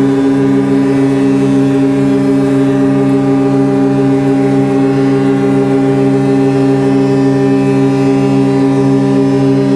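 Ship's fog horn sounding one long, unbroken, loud blast: a steady low tone with many overtones.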